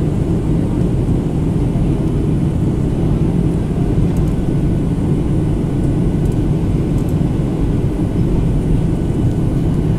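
Steady cabin roar of a Boeing 737-800 in descent: its CFM56 turbofan engines and the airflow over the fuselage make an even, low-pitched rushing noise.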